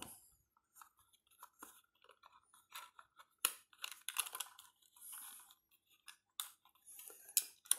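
Irregular small clicks, scratches and crackles, a few sharper than the rest, as a thin metal tie wire is untwisted and drawn out of the plastic underside of a remote-control toy car.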